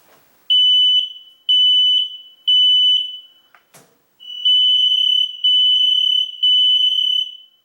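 Smoke alarm going through its self-test after its test button is pressed: three loud high beeps about a second apart, a single knock, then a longer run of the same alarm tone in roughly one-second pulses. The test shows that the freshly installed, reset alarm is working.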